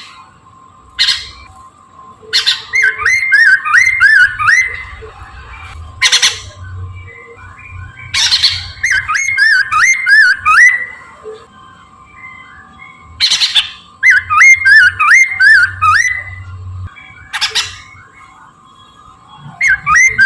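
A poksay Mandarin laughingthrush singing loudly. It gives three long phrases of rapid, looping whistled notes, with single short harsh calls between them.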